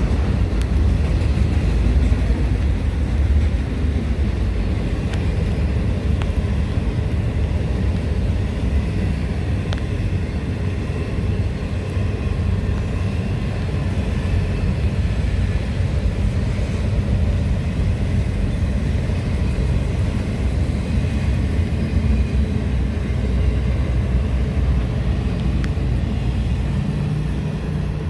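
Freight train rolling past with a steady low rumble of wheels on rail.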